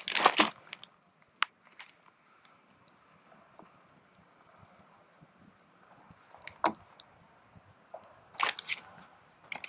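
A plastic bag rustling briefly at the start, then scattered knocks and taps as an onion is handled and cut with a knife on a plastic cutting board, a small cluster of them near the end. A steady high hum of insects runs underneath.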